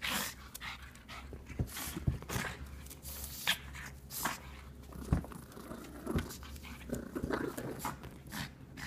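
A pug breathing in short, noisy, irregular bursts as it tugs and wrestles with a plush toy, with a few soft low thumps among them.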